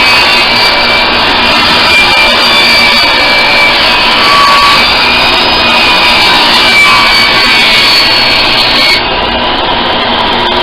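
Power saw running steadily and cutting wood, with a high whine over dense noise; it gets a little quieter near the end.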